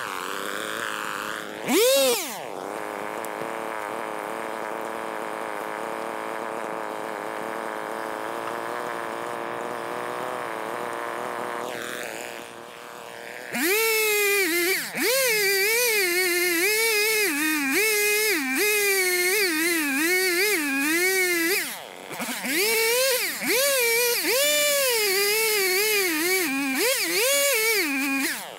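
Chainsaw in sped-up footage, its pitch raised. It runs steadily at a lower speed for about ten seconds. From about halfway it runs at high revs while cutting cedar, its pitch repeatedly dipping as it bogs in the wood and then climbing back, with a short break near the three-quarter mark.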